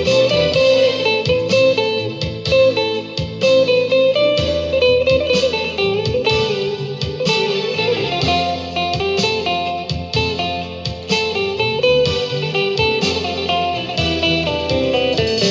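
Instrumental music led by a plucked guitar melody over a steady bass line, with notes struck in a regular rhythm.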